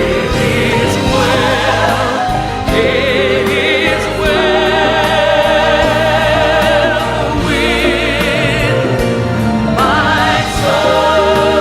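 Choir singing a gospel hymn in long held notes with a strong vibrato.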